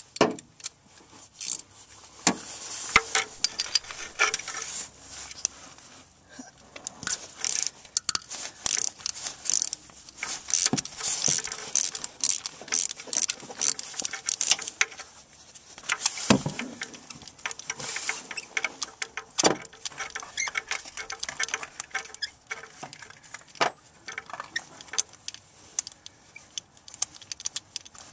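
Ratchet wrench with a chrome socket extension clicking and clinking against metal while turning a spark plug, in a run of irregular sharp clicks with a few louder knocks.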